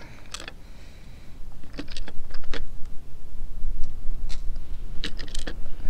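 Small metal bolts and washers clinking as they are handled and fitted onto a solar panel mounting bracket: scattered sharp clicks, several in quick succession around two and five seconds in. Wind buffets the microphone, growing much louder from about two seconds in.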